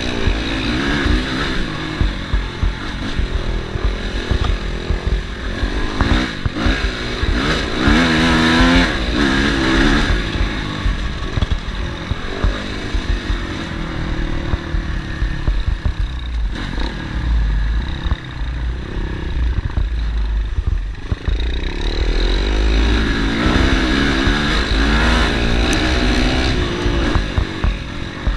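Dirt bike engine running on a trail ride, its revs rising and falling as the throttle is worked, over a constant low rumble. The revs climb hardest about a third of the way in and again in the last third.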